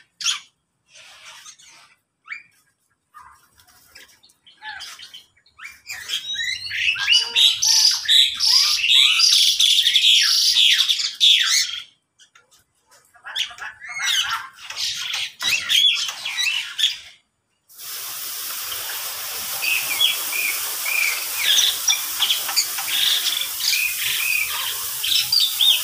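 A mixed aviary flock of lovebirds and other small cage birds chirping and chattering: scattered calls at first, a dense burst of high chatter from about six to twelve seconds, then more calls. About two-thirds of the way through, a steady hiss comes in under the chirping.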